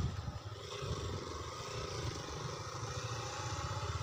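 Motorcycles passing, their engines running steadily.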